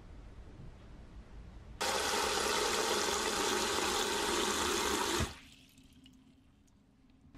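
Water gushing into a metal bowl of mixed multigrain rice to wash it. It starts suddenly about two seconds in and cuts off abruptly about three and a half seconds later.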